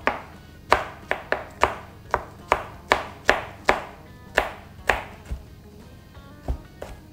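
Kitchen knife chopping garlic cloves on a plastic cutting board: sharp knocks of the blade on the board, about two or three a second, thinning out and stopping near the end.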